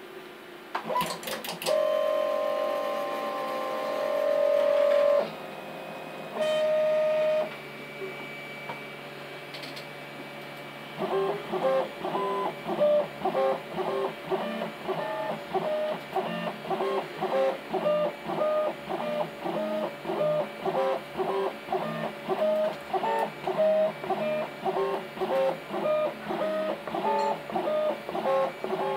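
Delta 3D printer's stepper motors whining in steady tones as the carriages move, then settling into a regular run of short repeated moves, nearly two a second, as the hot-end nozzle probes the bed for Z auto-calibration.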